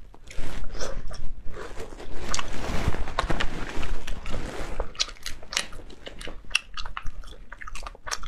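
Close-up mouth sounds of someone eating spicy cooked sea snails: sucking the meat from the shells and chewing it, with wet smacking and many short, sharp clicks.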